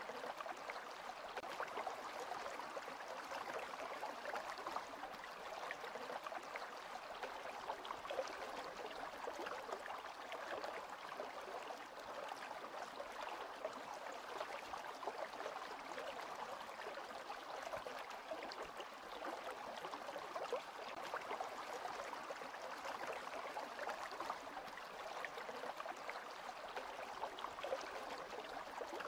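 Steady running water from a small stream.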